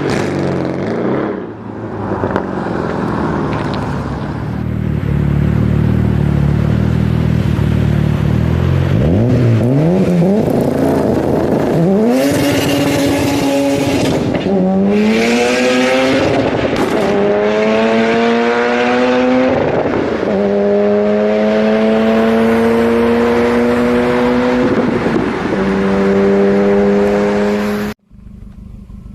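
A car engine pulling hard through the gears: after several seconds of low rumbling, its pitch climbs steeply, drops back at each upshift and climbs again, about five times, each gear rising more slowly. The sound cuts off suddenly near the end.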